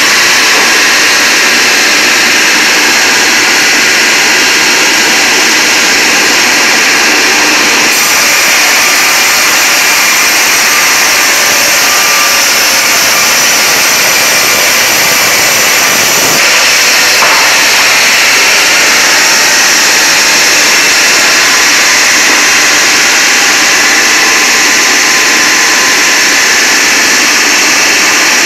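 CNC vertical band sawmill running and sawing a log on its carriage: a loud, steady machine whine and hiss. The sound turns brighter and hissier for about eight seconds in the middle, then settles back.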